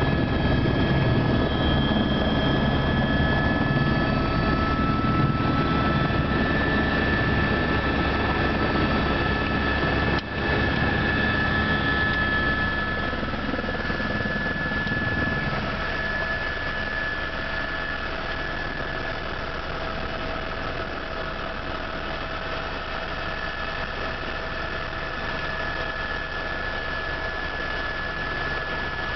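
Helicopter in flight heard from inside the cabin: a steady engine and rotor drone with a constant high turbine whine. The sound dips briefly about ten seconds in, and the low rumble eases somewhat from about fifteen seconds on.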